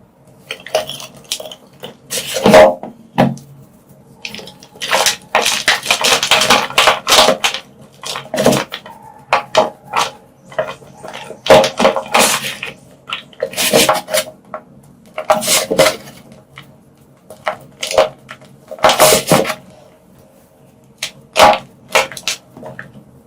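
Blocks of purple-dyed gym chalk being crushed, giving repeated crunching and crumbling bursts with short pauses between them, and a longer continuous run of crumbling about five to seven seconds in.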